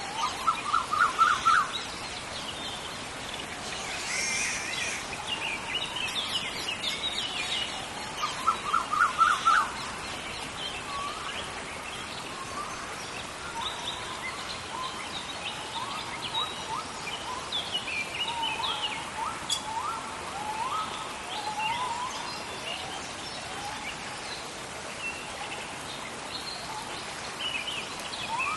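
Rainforest birds calling over a steady hiss of rain. A loud run of rapid repeated notes comes about a second in and again about eight seconds in, with many shorter chirps and whistles throughout.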